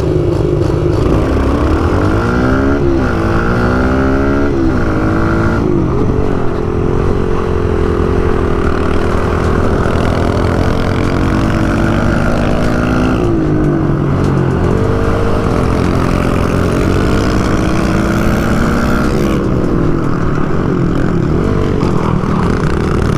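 Small single-cylinder pit bike engine being ridden hard, its pitch climbing and dropping again and again as the throttle is opened and closed and the gears change.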